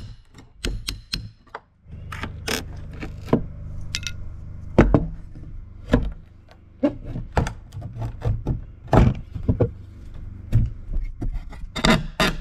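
Metal hand tools, a flat pry bar and scraper, knocking and scraping on an old cedar door as weathered wood is pried off its face: a run of irregular sharp knocks, clinks and scrapes.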